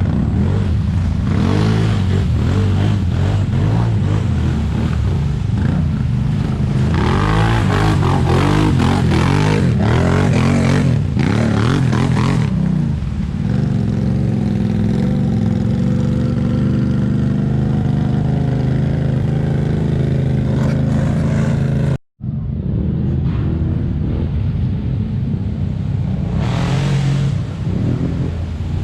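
ATV engine running and revving, its pitch rising and falling, with stretches of rushing noise over it. The sound cuts out for an instant about 22 seconds in.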